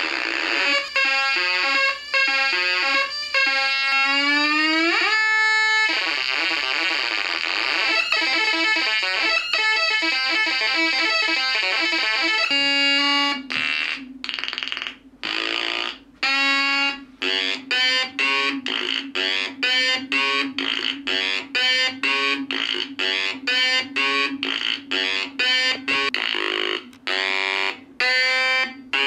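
Home-built 555-timer Atari Punk Console synths buzzing with harsh square-wave tones, the pitch shifting and gliding up about five seconds in as a control knob is turned. About halfway through, the sound breaks into a choppy stutter, switching on and off about twice a second, as the spinning rotor's contacts pass the brass brushes and switch the synths in and out in sequence.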